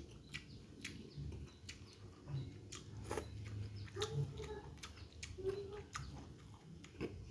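Close-up mouth sounds of a person chewing and smacking their lips on leftover scraps of food, with irregular sharp clicks.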